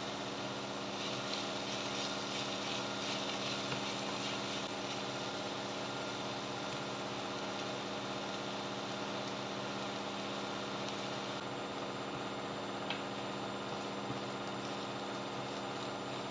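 A steady machine hum from a kitchen appliance, even throughout, over soft sizzling from shredded banana heart frying in a pan.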